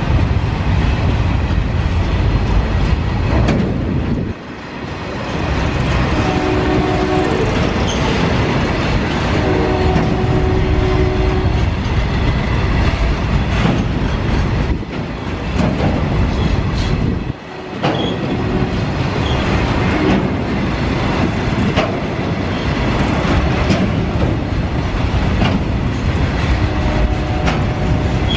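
Freight train of BCNA covered wagons rolling past at close range, with a loud continuous rumble and clatter of wheels on the rails. A brief steady pitched tone sounds twice, about six and ten seconds in.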